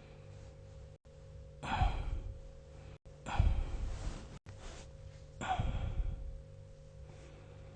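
Snoring sleeper drawing in air with a sharp, sucking, vacuum-like snore, three breaths about two seconds apart.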